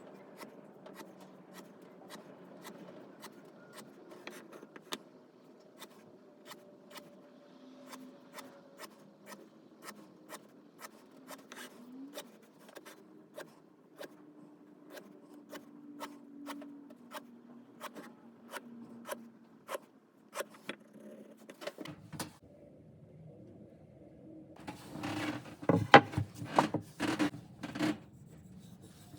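Light, even ticks about twice a second over a faint hum. About three-quarters of the way through they give way to louder hand work on wood, rubbing or rasping in short strokes.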